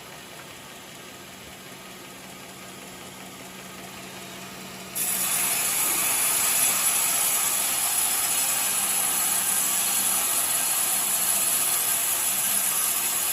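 Portable sawmill running; about five seconds in the sound suddenly gets much louder, a steady high hiss of the saw cutting through coconut timber.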